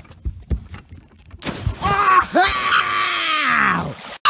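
Bare feet thudding on a wooden dock, then a long yell that rises and falls in pitch over the splash of a person jumping into a lake. It cuts off suddenly near the end.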